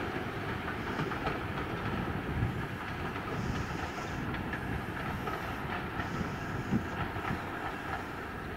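Steam-hauled passenger train rolling past along the line, with a steady rumble and its wheels clicking over the rails.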